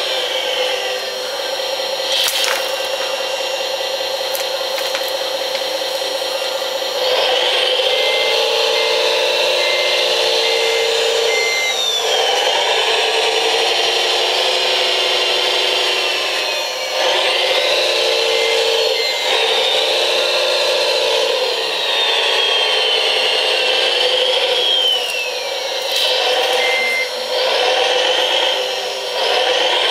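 Wedico scale-model Cat 966G wheel loader's electric motors and hydraulic pump whining, the pitch rising and falling as it drives and works the bucket. A repeated reversing beep sounds in several runs.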